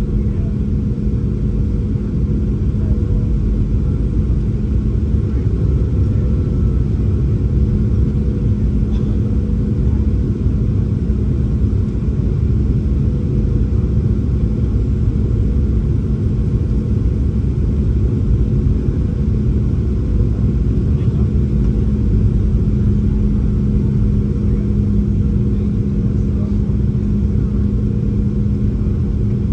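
Steady cabin noise inside a Boeing 737-800 in flight: the CFM56-7B engines and airflow drone evenly, with a steady low hum over the rumble.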